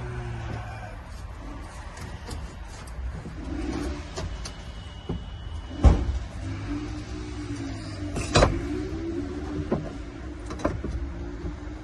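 A few sharp knocks as cut pieces are handled and fitted into place, the loudest about six seconds in and about eight and a half seconds in. Under them is a steady low rumble, and a wavering whine runs through the second half.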